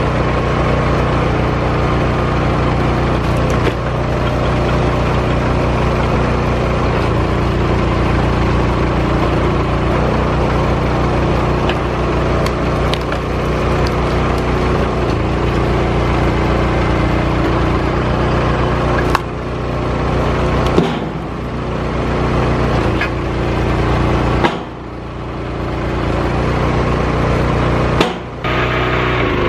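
Engine running steadily to drive a hydraulic wood splitter's 28 gpm pump, with split firewood knocking and clattering as pieces are handled and stacked. The engine sound drops away briefly a few times in the second half.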